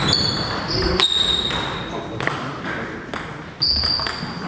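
Table tennis rally: sharp clicks of the celluloid ball against bats and table, with squeaks of sports shoes on the hall floor. The loudest squeaks come at the start, about a second in and near the end.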